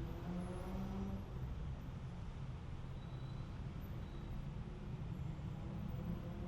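Road traffic on a busy city street: a steady low rumble of vehicle engines, with one engine rising in pitch in the first second or so as it speeds up.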